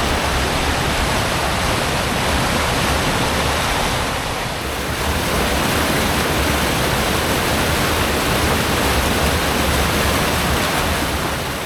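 River waterfall rushing steadily, its water falling into a pool with a strong current, with a slight dip in level about four to five seconds in.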